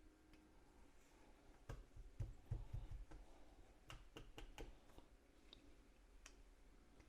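Faint clicks and taps of small plastic parts being handled: a pry tool working at an opened Samsung Galaxy SmartTag to free its coin-cell battery. A few soft knocks come about two seconds in, then a quick run of sharper clicks around four seconds.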